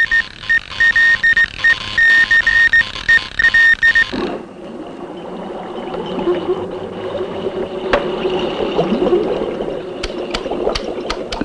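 Electronic film-score sounds. A high beeping tone pulses on and off in an uneven rhythm for about four seconds. It then gives way to lower, wavering tones with small pitch slides and a few sharp clicks near the end.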